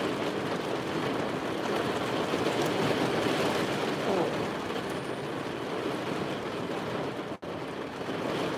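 Heavy rain drumming steadily on the roof of a parked vehicle, heard from inside the cab as a dense, even rush. It cuts out for an instant about seven seconds in.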